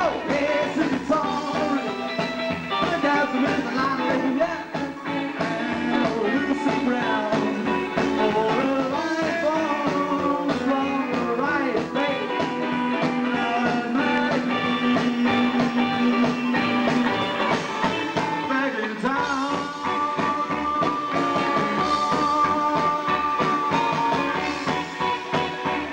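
Live rock and roll band playing a up-tempo number with a steady beat.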